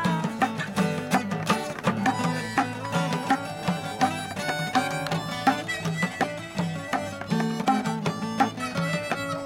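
Acoustic folk jam: a harmonica plays a solo of held, steady notes over two strummed acoustic guitars and a hand drum.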